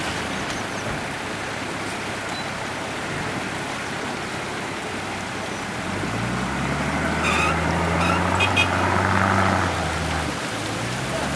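An off-road SUV's engine pulling at low revs. Its low drone comes in about six seconds in and grows louder, dips briefly near the end, then picks up again, all over a steady outdoor hiss.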